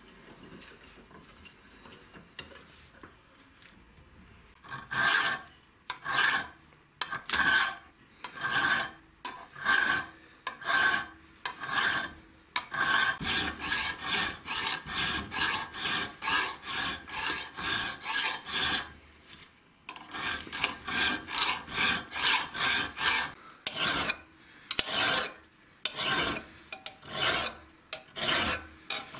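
Flat hand file stroking across a steel tube clamped in a bench vise, smoothing down its dented surface. After a few faint seconds the strokes come slowly, about one a second, then quicken to three or four a second, pause briefly about two-thirds of the way in, and go on.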